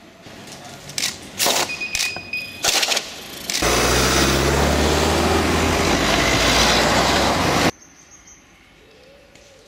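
A car driving past close by: a loud, even rushing of tyres and wind over a low engine rumble, cutting off abruptly near the end. Before it come a few sharp clicks and knocks.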